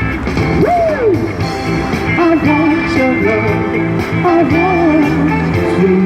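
A pop song playing: a sung melody, with a swooping rise and fall about a second in, over a steady band accompaniment.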